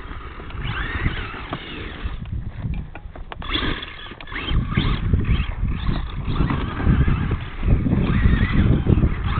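Traxxas Stampede RC monster truck's motor whining up and down in pitch as it is driven around, over a low rumbling noise. It eases off a couple of seconds in, then runs louder again from about halfway.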